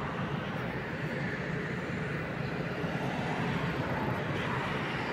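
Steady, even rumble and hum of an electric railway station with city noise behind it, where an electric locomotive stands at the platform with its train; nothing starts or stops.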